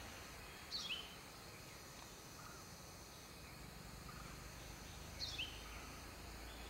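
Two short, sharp sunbird calls about four and a half seconds apart, each a quick pair of high notes falling in pitch, over a steady faint background hiss.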